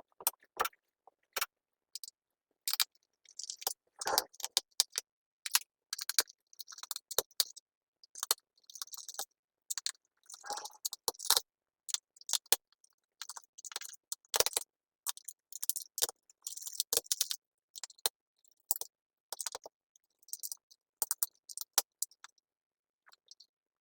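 Sped-up sound of a screwdriver working small screws out of a laptop's plastic bottom case: quick, irregular clicks, taps and scratchy rattles of metal on plastic, with short gaps between them.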